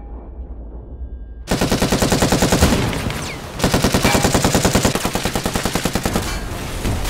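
Heavy machine-gun fire that starts suddenly about a second and a half in after a low rumble, a rapid run of shots that dips briefly just past halfway and then carries on.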